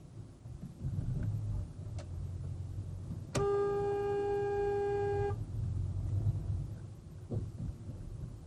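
One long car-horn honk, held steady for about two seconds starting a little over three seconds in, over the low rumble of road noise inside a moving car.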